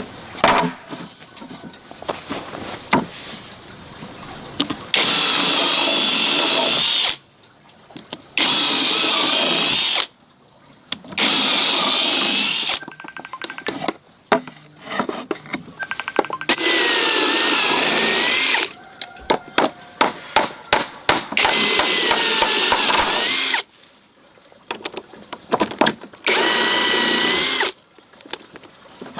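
Handheld power tool working wood for a stool, run in about six bursts of a couple of seconds each, its whine shifting in pitch as it bites. Between the bursts come sharp knocks and a quick run of taps.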